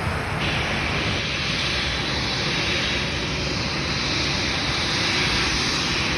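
Jet engines of a KLM Boeing 787-9 Dreamliner (GE GEnx-1B turbofans), a steady, even rush with no pauses or changes.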